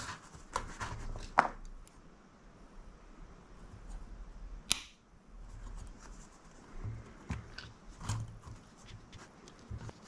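Scattered small clicks and taps of metal hand tools, forceps and a soldering iron, against a drone flight-controller board during soldering, with one sharper click about halfway through.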